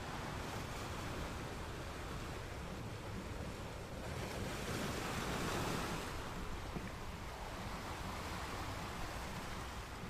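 Ocean waves washing in steadily, one wave surging louder about halfway through and then easing off.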